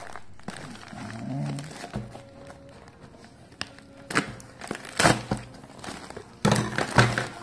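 Scissors cutting open a black plastic bubble mailer. The plastic crinkles and rustles, with several sharp crinkles from about four seconds in.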